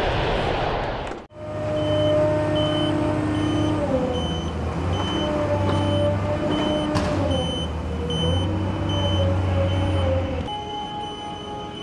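A vehicle engine runs with a slowly wavering pitch while a high warning beeper sounds at a steady rhythm, about two beeps a second, as an aircraft tow tractor moves. About a second in, a rushing noise cuts off abruptly.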